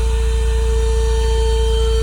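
Handheld car vacuum cleaner's motor running at a steady speed, a steady whine over a deep hum.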